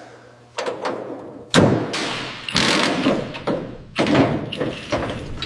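Heavy metal thuds and clanks from car body parts being handled in a workshop during teardown: about five impacts roughly a second apart, each fading out slowly, the loudest about one and a half seconds in.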